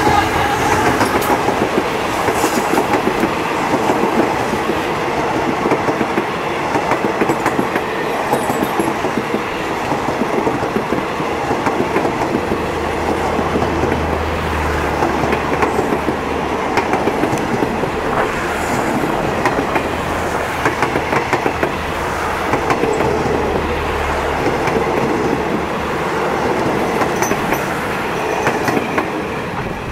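A long passenger train running through at speed: a steady rumble of wheels with rapid clickety-clack over the rail joints as coach after coach goes by, dying away near the end as the last coach passes.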